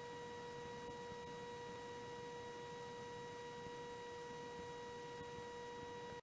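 A faint, steady, even hum or tone with a few higher overtones, over light hiss. The jointer's own sound has been taken out and is not heard.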